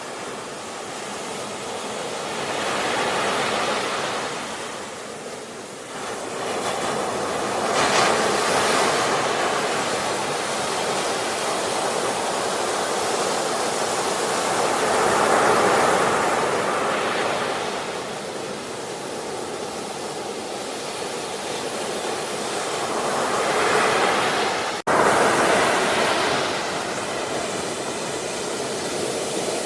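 Sea waves breaking and washing on the shore, a steady rush that swells and recedes every several seconds, with a brief sudden dropout near the end.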